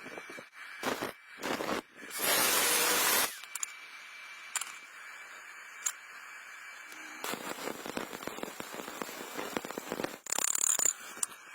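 Electric arc welding: the arc strikes in short crackling bursts, holds a loud steady hiss for about a second, then runs with a longer stretch of crackle and sputter, with a final brief hiss near the end.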